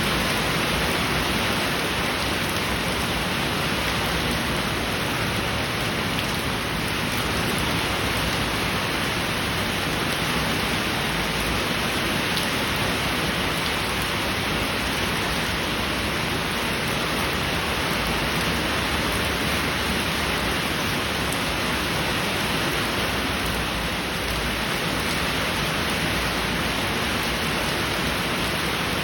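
Heavy rain falling steadily, a dense even hiss that holds the same level throughout.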